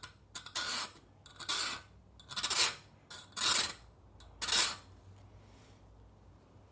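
Cutting edge of a quarter-inch drill bit dragged along a hand file: five short rasping strokes about a second apart. The edge is being filed back to a negative rake angle so that the bit will not bite into brass.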